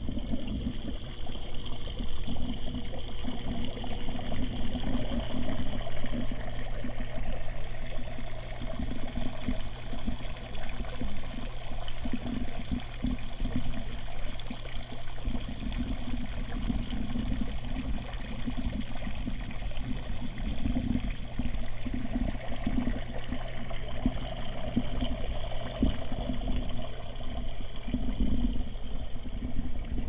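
Water falling as a curtain of drops from the overhead beam of a cedar water wall and splashing into its basin, a steady trickling patter, with a steady low hum beneath.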